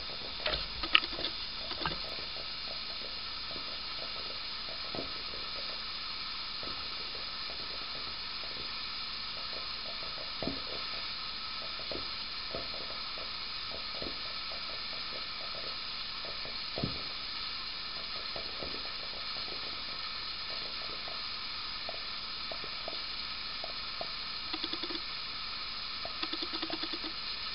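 Liquid heated over an open flame in a glass round-bottom flask, boiling: a steady hiss with scattered small pops and clicks, and more frequent pops near the end.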